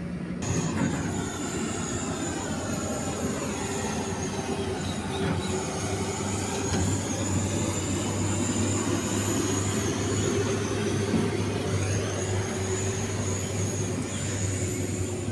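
Heavy vehicle engine running steadily, a deep drone with a thin high whine above it.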